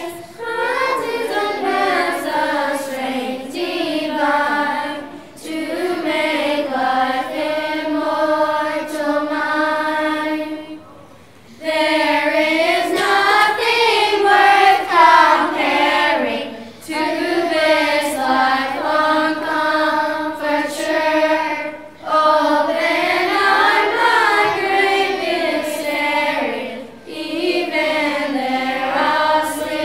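Children's choir singing a hymn in phrases, with short breaks between phrases and a longer pause about eleven seconds in.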